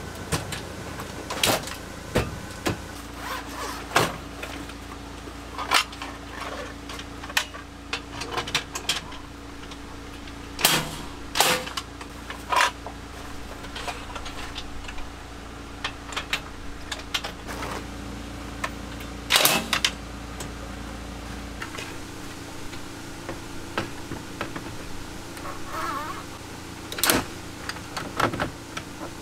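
Bamboo boards and aluminium rails of a tent trailer's slide-out kitchen drawer being handled: irregular knocks and clacks, a few much sharper than the rest, over a steady low hum.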